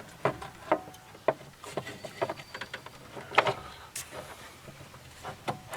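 Irregular sharp clicks and knocks of a plastic radiator fan shroud being worked and snapped into place on a 2001 Isuzu Rodeo.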